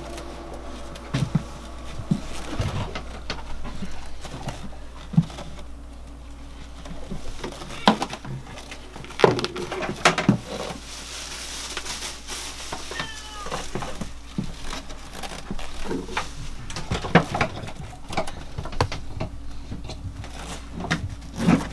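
Scattered knocks and clunks of plastic oil drums and a trailer strap being handled, with footsteps on the floor, over a steady low hum.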